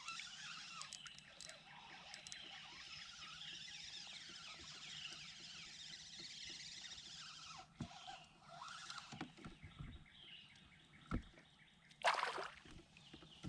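Many birds singing at once, a chorus of overlapping high whistles and chirps that thins out about two-thirds of the way through. After that come a few single knocks and, near the end, a short rush of noise.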